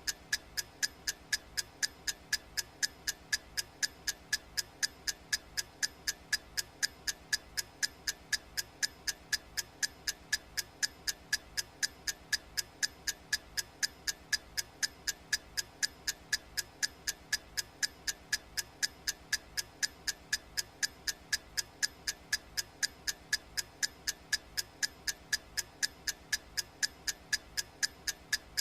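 Clock ticking sound effect: identical sharp ticks at a steady, even pace, several a second.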